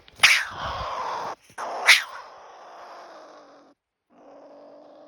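Agitated pine marten in a live cage trap: two loud, sharp outbursts about a quarter second and two seconds in, then a steady low growl from about four seconds in.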